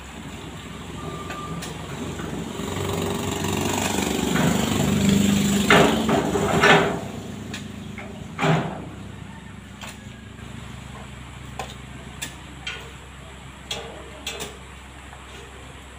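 A motor vehicle's engine swells up and fades again, with three sharp metal knocks at its loudest. After that come scattered light metal clicks and taps as a steel mudguard is handled and fitted onto a tricycle sidecar wheel.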